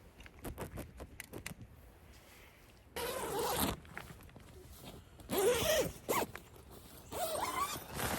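A zipper being pulled in three long strokes of about a second each, after a run of small clicks and rustles.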